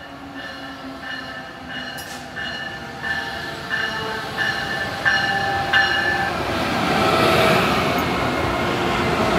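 Amtrak train led by a Siemens ACS-64 electric locomotive approaching along the platform track, its bell striking steadily, roughly once every half to three-quarters of a second, and growing louder. From about six seconds in, the rush of the locomotive and train passing close by swells and drowns the bell.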